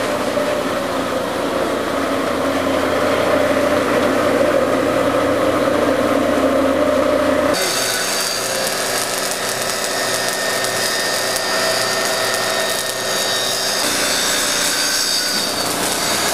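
Metal fabrication noise on a steel tube frame: a power tool running steadily, then an abrupt change about seven and a half seconds in to a harsher, hissing crackle as welding starts.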